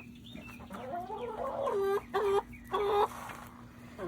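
Chickens calling: a run of pitched squawks that rise and fall, ending in a few shorter calls one after another.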